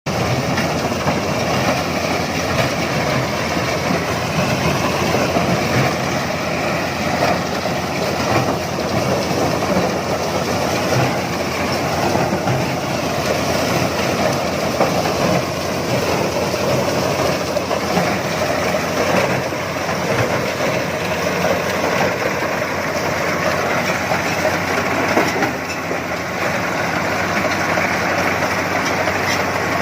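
Corn harvesting machine running steadily, its engine and working parts making a continuous, even mechanical drone.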